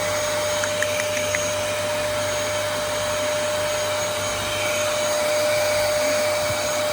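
Vacuum cleaner running steadily, a constant tone over the rush of air, with a few faint ticks about a second in.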